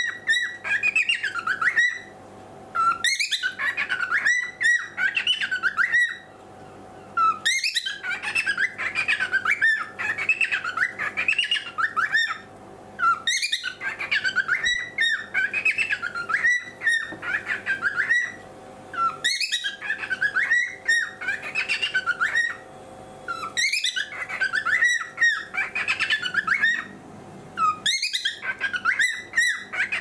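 Cockatiel chattering and warbling: runs of quick chirps and whistles lasting several seconds each, broken by short pauses.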